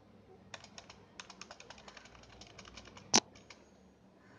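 Fast typing on a computer keyboard: a quick run of key clicks, several a second, with one much louder keystroke about three seconds in.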